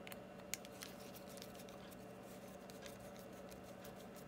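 Faint small clicks and ticks of a hex driver turning a screw into a carbon-fibre drone frame. The clearest come in the first second, over a steady low hum.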